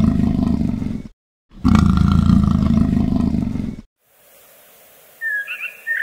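A big cat roaring twice, deep and rough, each roar about two seconds long and cut off abruptly. In the last second, a few high bird chirps over a faint hiss.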